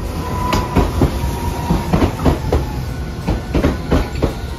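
Hiroden low-floor articulated tram passing close by, its wheels clacking over rail joints in a quick, irregular run of knocks over a low running rumble, with a steady high whine underneath.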